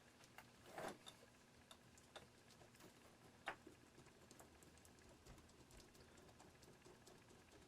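Faint, scattered small clicks of a miniature Christmas-light bulb's plastic base being rocked back and forth in its socket. The bulb is stuck fast.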